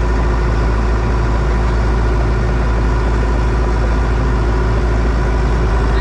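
Bulldozer's diesel engine running steadily at a constant speed: a continuous deep rumble with a steady drone.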